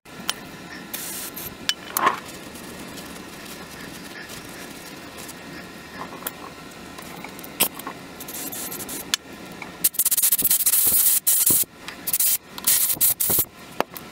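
Scattered light clicks of hand work, then near the end a run of loud, broken hissing and rubbing bursts close by.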